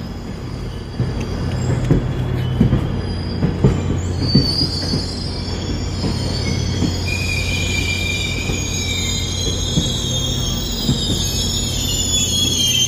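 Commuter train at the platform: a steady low rumble with a few knocks early, then high wavering wheel squeal starting about four seconds in.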